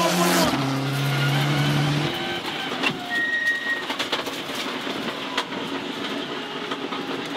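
Ford Escort RS Cosworth rally car's turbocharged four-cylinder engine running hard as the car passes at speed. Its pitch drops about half a second in and the sound stops about two seconds in. After that it is quieter, with scattered clicks and a short high beep about three seconds in.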